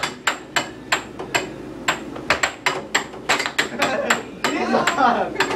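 Air hockey puck and mallets clacking in a fast rally, with many sharp hits in quick, uneven succession.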